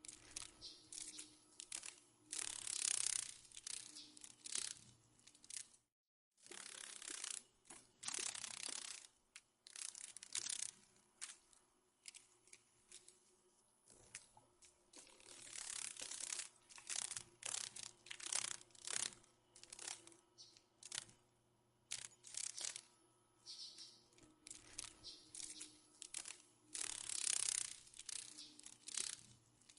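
Dragonfly wing sound effect: dry, papery crackling and rattling in irregular bursts, with a brief cut to silence about six seconds in.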